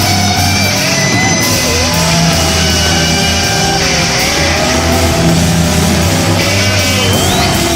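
Rock music with electric guitar, loud and continuous.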